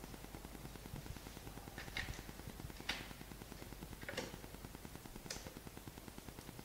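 Four faint, sharp clicks about a second apart from a screwdriver driving screws into the plastic decorative case at the base of an ultrasound monitor bracket. A steady low background hum runs underneath.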